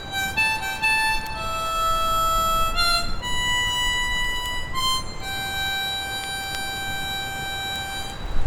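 Instrumental background music: a slow melody of long held notes on a reedy wind instrument.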